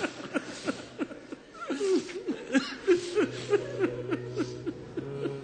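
A crowd sobbing and weeping aloud, many short falling cries in quick succession. A steady low music tone comes in about three seconds in.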